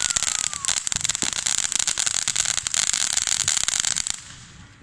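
Ground fountain firework spraying sparks, with a steady hiss and dense crackling that dies down about four seconds in. A falling whistle fades out in the first second.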